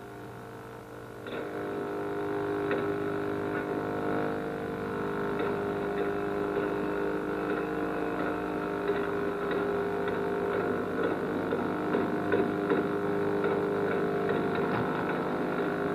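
Steady electrical hum of several tones on the sound track of an old portable videotape recording, with faint scattered clicks over it.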